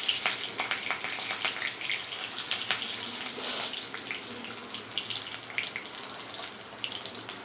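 Panch phoron spices and green chillies sizzling and spattering in hot oil in a pan, with many small crackling pops that ease a little toward the end.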